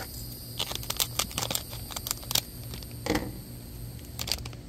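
Foil blind-bag toy packet crinkling and crackling as it is handled and pulled open by hand: a run of sharp, irregular crackles with short pauses between.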